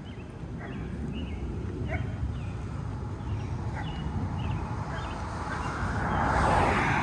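Street ambience with a low rumble on the microphone and a few short, high chirps, then a car passing by, swelling to its loudest near the end.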